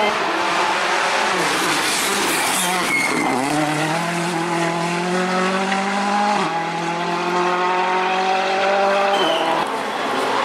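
Rally car engine accelerating hard through the gears. The pitch climbs in each gear and drops sharply at each of about four upshifts.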